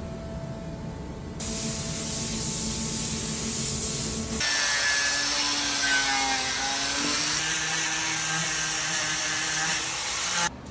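Woodworking power tools cutting and shaping wood, in short clips that change abruptly: a steady motor hum, then a hiss of cutting joined about a second and a half in, then from about four seconds in a louder whine with wavering tones that stops suddenly near the end.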